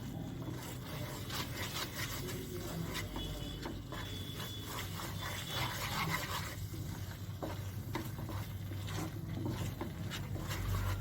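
A spoon stirring and scraping a thick, sticky jaggery-and-ginger mixture around a cooking pan in irregular rubbing strokes, over a steady low hum.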